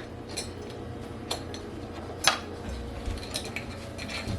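Light kitchen handling sounds: a few sharp clicks and clinks of utensils and containers being put down and closed, the loudest about two seconds in.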